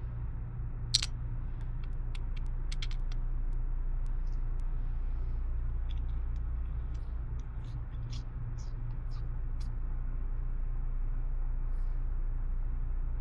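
A steady low hum with a scattered handful of short, light clicks, the sharpest about a second in.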